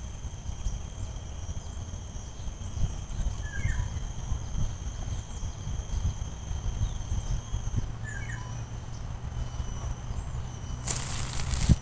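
Outdoor ambience: a steady high insect drone, low wind rumble on the microphone, and a few faint short bird chirps. A short burst of noise near the end.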